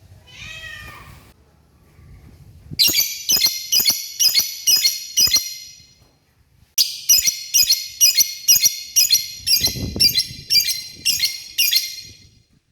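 Male lovebird calling to a female: a short call at the start, then two long runs of rapid, shrill chirps, about three a second, with a pause of about a second between the runs.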